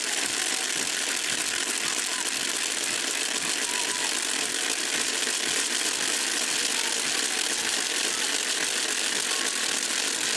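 Steady, dense rattling din from a crowd of festival dancers, with no clear voice or music standing out.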